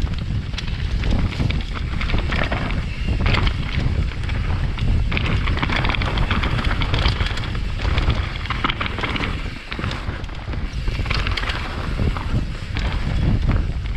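Wind buffeting a helmet-mounted GoPro's microphone during a mountain-bike descent, with irregular rattling from the bike and its tyres over rough trail.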